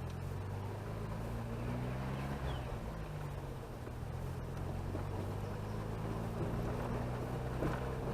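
Chevrolet Chevette driving along a road: steady engine drone with road noise, heard from inside the car. The engine note shifts about two and a half seconds in.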